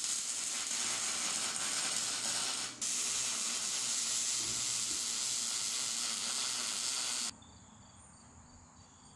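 Electric arc welding on steel braces: a steady crackling sizzle, broken once by a brief pause about three seconds in as one bead ends and the next begins. It stops abruptly after about seven seconds.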